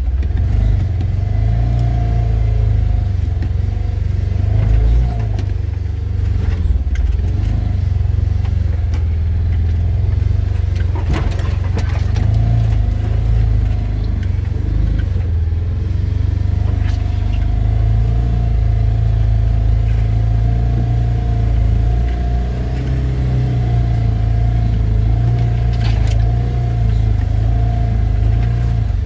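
Engine of a small orange utility vehicle running steadily as it drives along a grassy trail: a low drone with a steady higher whine over it. A few knocks and rattles come about eleven to twelve seconds in.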